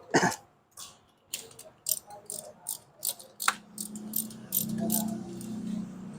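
Irregular metallic clicks and clinks of hand tools during spark plug installation, with a low hum joining about four seconds in.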